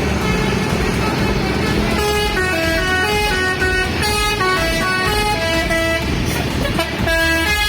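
Tour bus telolet horn, a set of multi-tone air trumpets, sounding a held chord and then, about two seconds in, a quick tune of changing notes. Bus engines rumble underneath.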